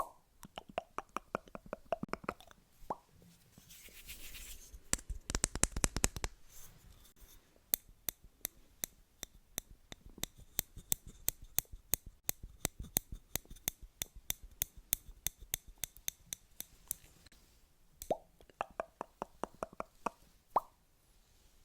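ASMR trigger sounds: close-miked taps and clicks on an object. A dense, fast run of taps with a faint hiss comes about four seconds in, then a long even series of crisp taps at several a second, with softer, duller taps near the start and end.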